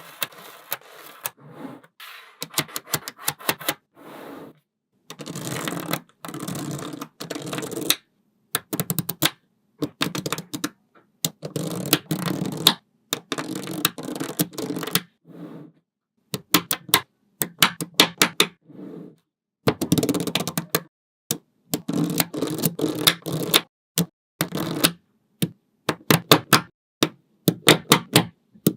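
Small neodymium magnetic balls clicking and snapping together, in quick runs of sharp clicks broken by stretches of denser rattling as clusters of balls are pushed into place.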